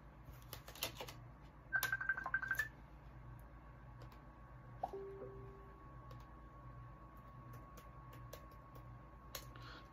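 Faint plastic clicks and rattles of a DVD disc and its case being handled, loudest in a quick clattering run about two seconds in as the disc goes back into the case. A faint steady hum sits underneath.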